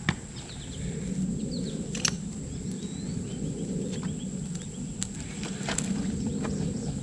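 Outdoor ambience: a steady high whine over a constant low rushing noise, with brief faint bird chirps and a few sharp clicks or knocks scattered through.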